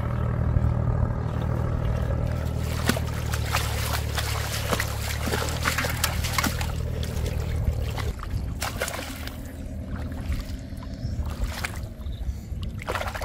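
Water splashing and sloshing as a caught fish is handled in shallow paddy water and dropped into a bucket, with a run of sharp splashes in the middle, over a steady low rumble that fades about eight seconds in.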